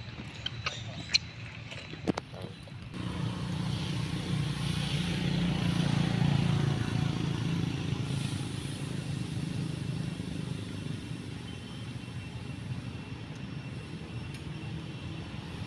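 A few sharp clicks, then a low engine rumble from about three seconds in that swells and slowly fades, like a motor vehicle passing.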